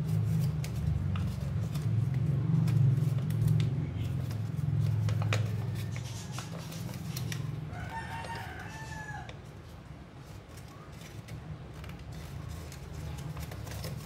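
Origami paper crinkling and creasing under the fingers as it is folded, over a low steady hum that fades out about six seconds in. About eight seconds in comes a single call about a second long that rises and falls in pitch.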